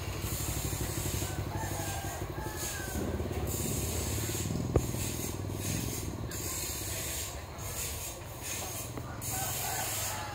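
A steady, low mechanical rumble, like a motor or engine running, under a constant high hiss, with a single sharp click a little before halfway.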